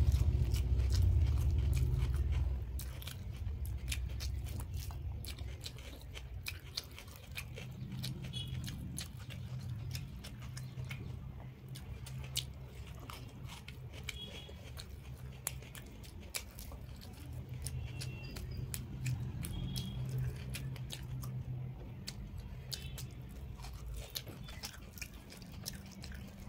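Close-miked eating: a mouthful of rice and curry chewed with wet smacks and many sharp mouth clicks, over a steady low hum that is louder in the first couple of seconds.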